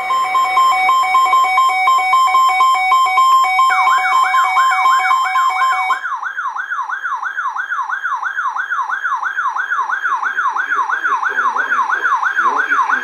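Electronic alert siren: a pulsing two-note beep that stops about six seconds in, overlapped from about four seconds in by a fast yelp sweeping upward in pitch about three times a second.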